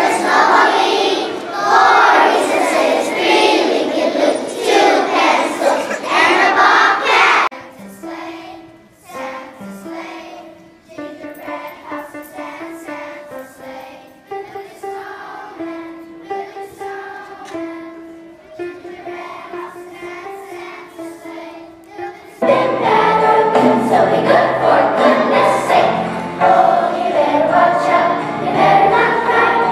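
A children's choir singing. Loud children's voices for the first several seconds, then a quieter melody of held notes, and about 22 seconds in the choir comes in loud again over low accompaniment.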